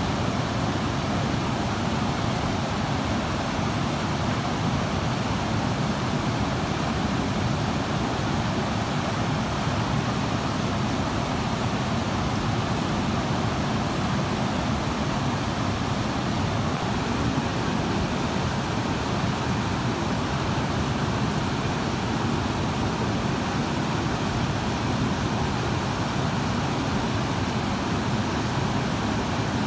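Mountain river rapids rushing over rocks: a steady, unbroken noise of fast white water.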